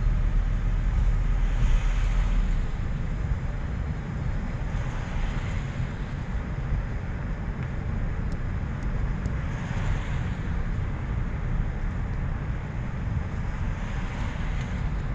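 Car cabin noise while driving slowly: a steady low rumble of engine and road, with a tyre hiss that swells and fades four times.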